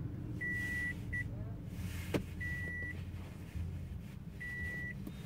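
An electronic beep, one steady tone about half a second long, repeating every two seconds (three times, with one short blip after the first), over a low steady hum in a car cabin. A single sharp click sounds about two seconds in.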